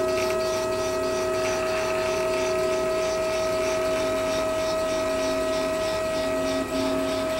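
FDM 3D printer running a print, its stepper motors driving the print head back and forth with a steady whine made of several held tones. There is a brief dip in the sound near the end.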